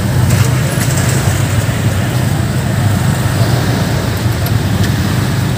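Steady vehicle noise with a constant low rumble.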